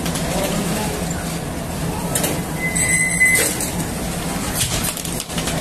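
Conveyor bread-oven and bakery machinery running steadily with a low hum, with a brief high tone about three seconds in.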